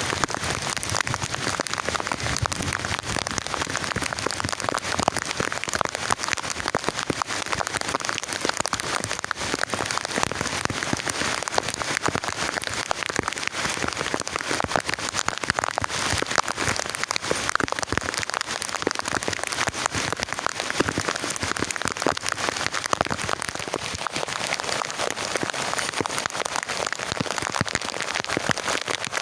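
Heavy rain falling steadily, a dense patter of countless separate drops striking a surface, with no let-up.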